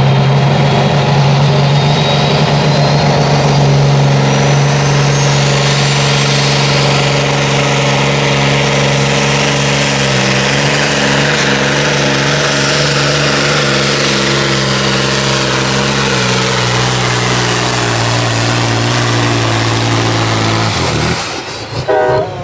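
Vintage Volvo truck's turbo diesel engine running at full throttle under heavy load while pulling a weight-transfer sled, with a turbo whine that rises over the first several seconds and then holds high. The engine note shifts about halfway through and drops away shortly before the end, as the pull finishes. A horn starts blowing at the very end.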